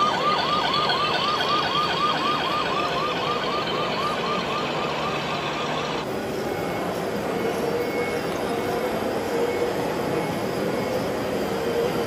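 Electronic siren yelping in quick falling sweeps, about three a second, that stop abruptly about six seconds in, over a steady background din.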